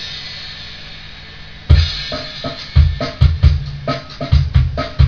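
Drum-kit loop playing through a homemade tube compressor with its tube-diode detector switched in, which takes the edge off the drum transients. A cymbal rings out and fades, then about a second and a half in the kick and snare beat comes back in at roughly two hits a second.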